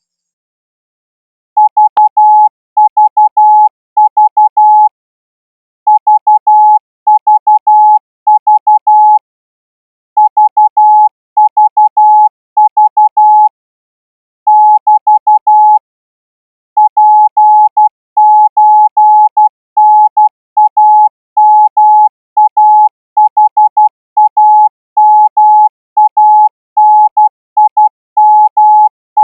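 Morse code sent as a single steady tone keyed on and off in dots and dashes, grouped into characters with short silences between them. It is Thai-language Morse for a receiving test at 16 words per minute.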